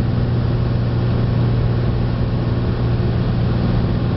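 Cessna 206's six-cylinder piston engine and propeller droning steadily, heard from inside the cockpit in flight, with a constant low hum over a rush of airflow noise.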